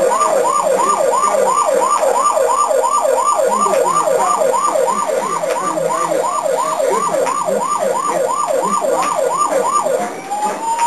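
Electronic siren switched from a slow wail into a fast yelp, about three rapid rising sweeps a second, going back to the slow rising and falling wail near the end.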